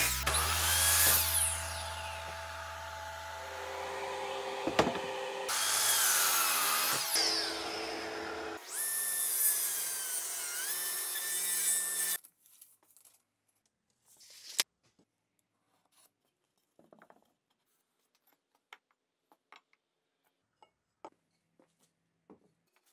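Power saws cutting alder in a few short takes, first a miter saw crosscutting and then a table saw. The saw noise stops abruptly about halfway through. After that it is quiet apart from scattered light knocks and clicks of wooden parts being handled and fitted.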